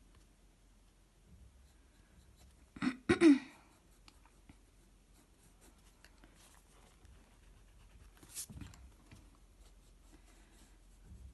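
Pencil sketching on sketchbook paper: faint, light scratching strokes. About three seconds in, a brief loud double sound stands out above the scratching, and a softer short sound follows about eight seconds in.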